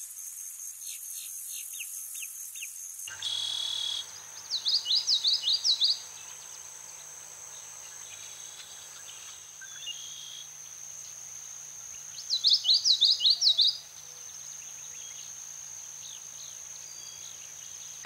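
Male common yellowthroat singing its rolling, repeated witchety-witchety song in two short bouts, about a second and a half to two seconds each and some eight seconds apart. A steady high drone of insects runs underneath.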